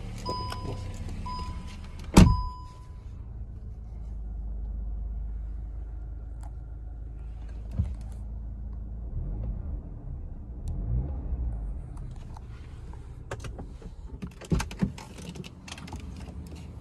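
Cupra Formentor's cabin warning chime beeping a few times, as the dash warns to switch off the ignition before leaving the car, then a loud thump about two seconds in. A low steady engine hum runs until about twelve seconds in, then a few clicks and knocks sound inside the cabin.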